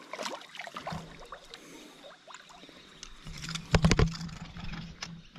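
A hooked European carp splashing at the surface in shallow water as it is drawn in to the bank, with a louder flurry of splashes about four seconds in.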